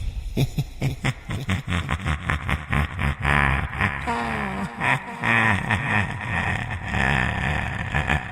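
Evil laughter: a deep voice laughing in quick rhythmic pulses, about four to five a second, with a falling glide in pitch around the middle.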